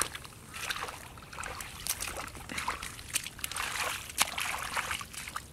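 Hands sloshing and splashing in shallow muddy water while groping through the mud, in irregular short splashes.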